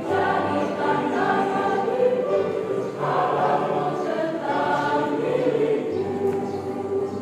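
Church choir singing a hymn in several voice parts, holding long notes, with the chord changing about three seconds in and again near six seconds.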